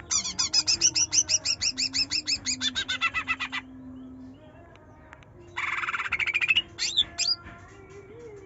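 Green leafbird (cucak ijo) singing: a fast run of repeated sharp whistled notes, about five or six a second, lasting about three and a half seconds. After a pause comes a short buzzy trill, then two sharp notes.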